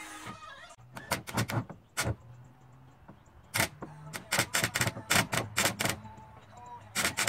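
Hammer blows on plywood siding, in quick runs of strikes: a short run, a couple of single blows, then a longer run of about eight, and two more near the end.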